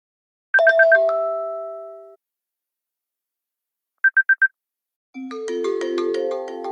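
iPhone 5s ringtones and alert tones played one after another. About half a second in there is a quick four-note chirp that ends in a held chord fading out; around four seconds in come four short high beeps; and about five seconds in a busy many-note ringtone melody begins.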